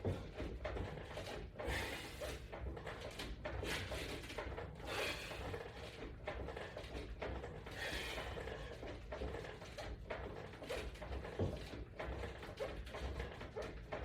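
A man working out on a wall-mounted resistance-band exercise system: breathy exhalations and small mechanical clicks and creaks come every second or two as he does repeated pull-down crunches.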